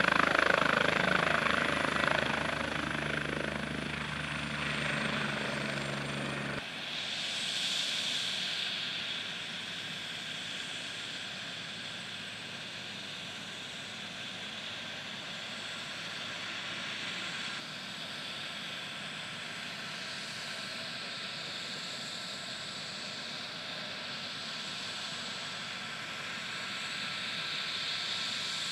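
Air-ambulance helicopter's rotor and turbine engine running close by, loudest at the start, cut off abruptly about six and a half seconds in. A fainter steady hum and hiss remains after it.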